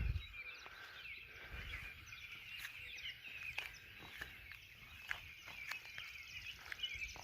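Songbirds singing faintly in an early-morning dawn chorus: many overlapping short chirps and warbles, with a few scattered faint ticks.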